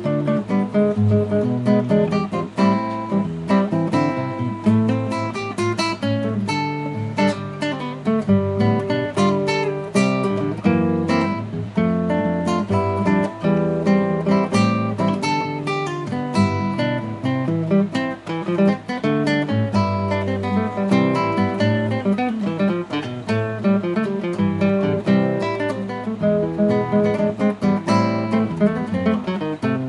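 Frevo de bloco music led by strummed and plucked acoustic guitars, playing without a break.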